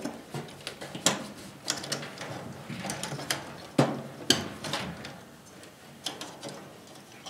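Wires with spade connectors being handled and pushed onto the terminals of an electric furnace sequencer: irregular small clicks, rattles and snaps, the loudest a little after a second in and around four seconds in.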